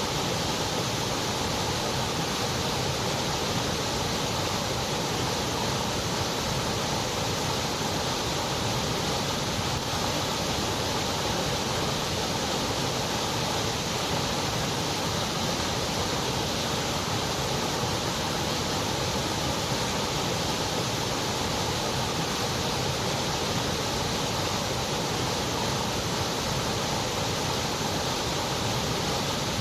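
Synthetic white noise: an even, steady hiss that never changes.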